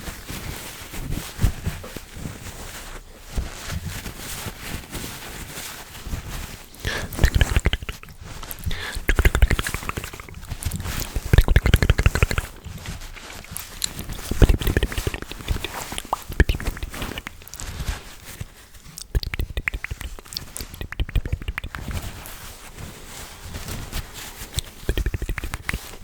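Close-miked ASMR hand and mouth sounds: a busy, irregular run of crackly clicks and soft low thumps.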